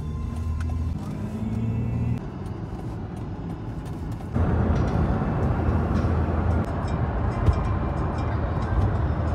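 Inside a moving car: steady low engine and road rumble, growing louder and wider about four seconds in with more tyre and wind noise at higher speed.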